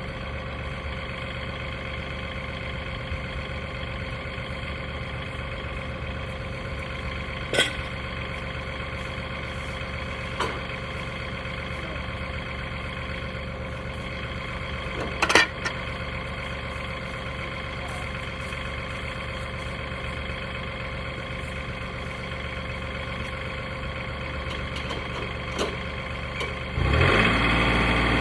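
Portable sawmill's gasoline engine idling steadily, with a few short sharp knocks over it. Near the end the engine throttles up and runs louder.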